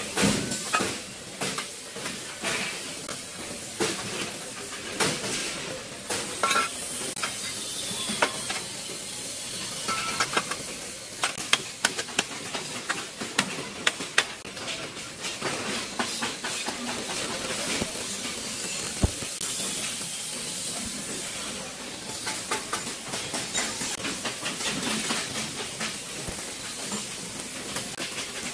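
Steel tubes and brackets knocking and clanking irregularly as they are laid into a steel chassis jig on a welding table, over a steady high hiss.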